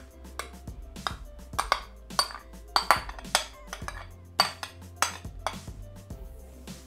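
Irregular taps and clinks against a Thermomix stainless-steel mixing bowl as grated mozzarella is tipped in, a dozen or more sharp knocks, over soft background music.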